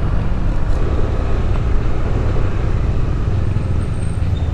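Motor scooter running under way, heard as a steady low rumble with wind buffeting the microphone.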